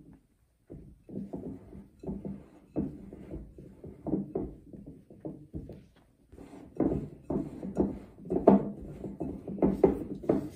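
A silicone spatula mixing flour into creamed butter cookie dough in a glass bowl: irregular scraping and pressing strokes, a few per second, growing louder after about six seconds as the dry flour is worked in.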